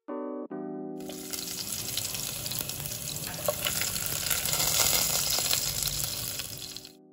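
Sliced garlic sizzling in hot oil in a pot. The sizzle starts suddenly about a second in, grows louder, and cuts off near the end, with piano music underneath.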